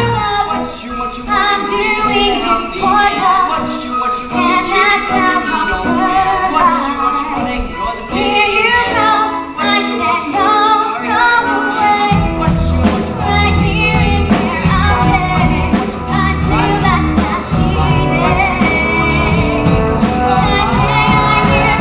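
Musical-theatre song: female voices singing over instrumental accompaniment, with a low bass part coming in about halfway through.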